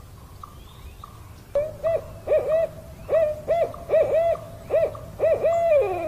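Barred owl hooting: a rhythmic series of hoots begins about a second and a half in and ends near the end with a long note that slides down in pitch.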